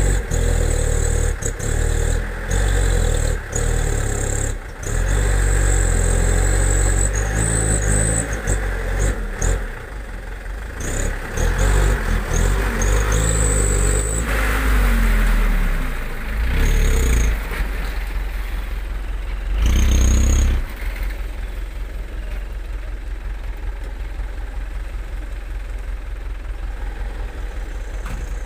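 Diesel engine of a loaded Mitsubishi dump truck revving hard under heavy load as the truck struggles through deep mud, the revs dropping and rising again several times. After about twenty seconds it settles into a lower, steadier engine sound.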